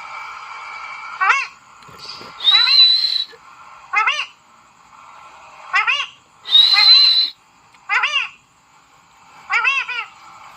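Pet parrot giving a series of short, sharp screeching calls about a second or two apart, two of them longer with a high, steady whistle.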